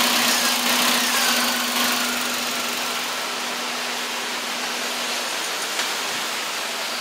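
A 2001 Toyota Echo's four-cylinder engine idling steadily while it drives a newly installed high-output alternator that is charging. A steady hum runs under it and fades out about five seconds in.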